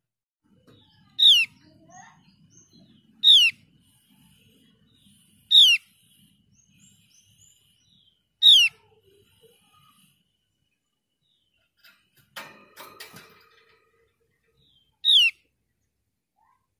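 Javan grey-throated white-eye giving short, sharp calls, each a quick falling note, four times at two- to three-second spacing and once more after a longer pause. A brief scuffling rustle comes in the gap, about twelve seconds in.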